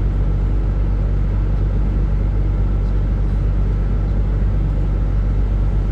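Car engine idling: a steady, unbroken low rumble.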